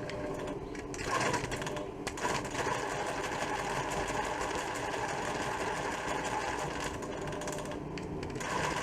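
Pfaff Creative 1471 sewing machine running with no needle fitted, its speed set by the foot pedal. It picks up about a second in, runs on unevenly, and dips briefly near the end before picking up again. This unevenness is a sign of a dead spot in the foot pedal.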